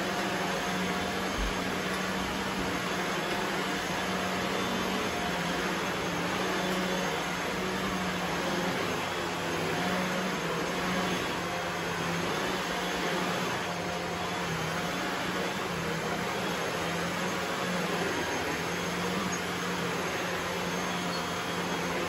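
Shark upright vacuum cleaner running steadily while it is pushed back and forth over carpet: a steady motor hum under an even hiss of air.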